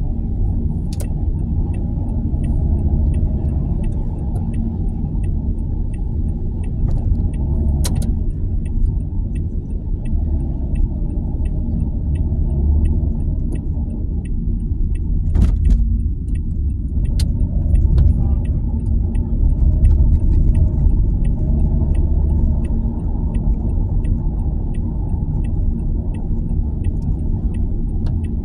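Steady low rumble of a moving car, with a faint regular ticking about twice a second and a few sharp clicks.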